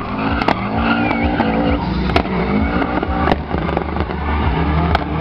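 Rally car's engine revving hard in repeated rising and falling sweeps as it drifts, its tyres spinning and skidding, with sharp cracks now and then.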